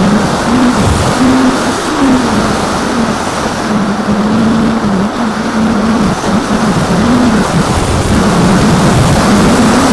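Electric motor and propeller of an AXN foam FPV plane buzzing in flight, the pitch wavering up and down with throttle, over a steady rush of wind across the airframe.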